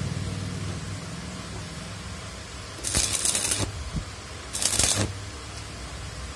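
Electric arc welding on a motor rotor shaft to build up its worn bearing seat: a welding machine hums steadily, and the arc crackles in two short bursts, about three seconds in and again about a second and a half later.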